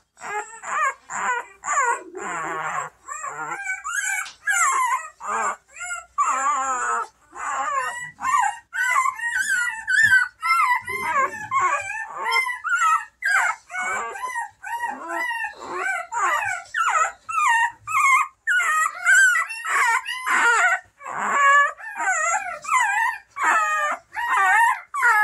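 Newborn Bernese Mountain Dog puppy crying: an unbroken string of short, high-pitched squeals and whimpers that rise and fall in pitch, one after another.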